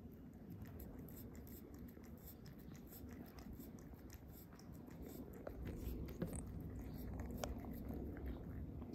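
Cat chewing and licking flakes of tuna off a plate, heard close up: a steady run of small, irregular wet clicks. A low rumble rises about halfway through.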